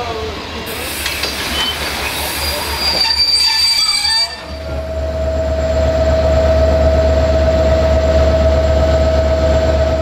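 Railway coaches rolling past with a clatter and a brief high wheel squeal. About four seconds in, a locomotive passes close, with a loud, deep steady rumble and a held humming tone.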